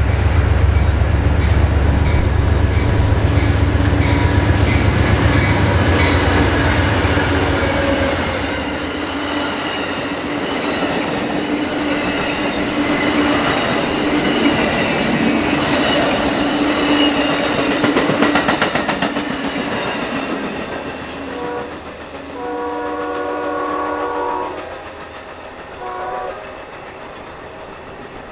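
A passenger train led by two GE P42DC diesel locomotives passes close by with a heavy low rumble, then the wheels of its double-deck cars click over the rails. As it recedes, a multi-tone train horn sounds: a long blast about 22 seconds in, then a short one.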